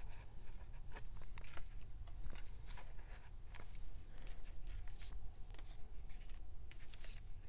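Small paper cutouts being handled and slid into the clear plastic sleeve pockets of a journal page: light rustling of paper and plastic, with scattered soft ticks and scrapes.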